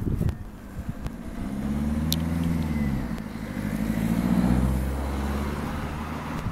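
A motor vehicle's engine passing close by, its note rising and falling twice and loudest about four and a half seconds in.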